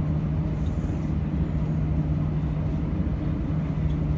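Steady drone inside an airliner cabin, a constant low hum with rumble beneath it, unchanging throughout.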